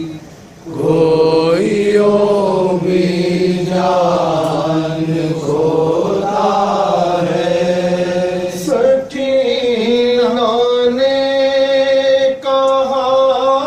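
Two men reciting a noha, a mournful Urdu lament for Muharram, chanted in long held notes into a microphone. The chant breaks off briefly just at the beginning, then carries on.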